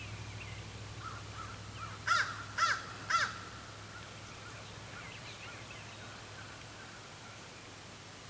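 A crow cawing three times in quick succession, about half a second apart.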